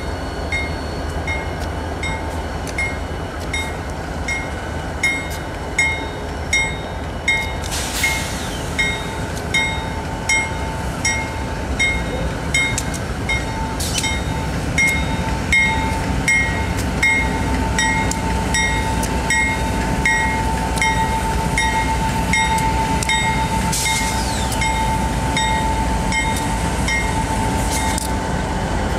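A consist of diesel freight locomotives passes close by with their engines running and a steady rumble. A regular high ding sounds about every 0.7 seconds, and a steady whine grows stronger from about midway.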